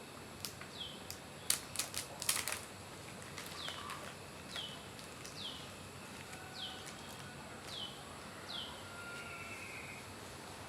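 A bird calling over and over: a short, high whistle sliding downward, about once a second. Near the start comes a quick cluster of sharp clicks.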